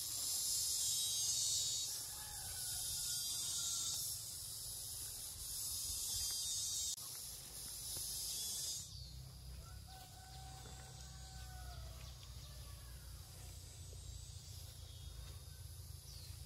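Shrill insect chorus, a high buzz that swells in long spells of a few seconds for the first half and then drops to a softer steady drone. Faint drawn-out animal calls come through twice, once about two seconds in and once about ten seconds in.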